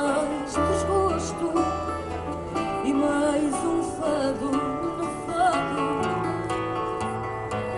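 Live music: a woman singing into a microphone, accompanied by a plucked acoustic guitar, with sustained low notes underneath.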